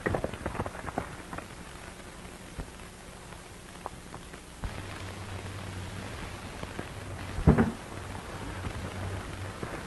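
Hoofbeats of a horse on soft ground for the first second or so, over the steady hiss and crackle of an old film soundtrack. A low hum comes in about halfway, a single heavy thump follows about three-quarters of the way through, and more hoof knocks come near the end.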